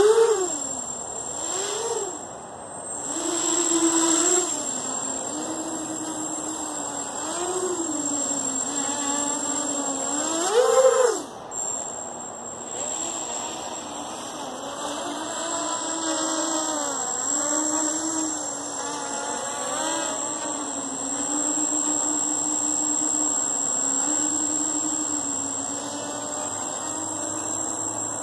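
Quadcopter's EMAX MT2204 brushless motors spinning 5040 bullnose propellers in flight, a buzz that swoops up and down in pitch with repeated throttle bursts, loudest about eleven seconds in, then settles to a steadier pitch for the rest.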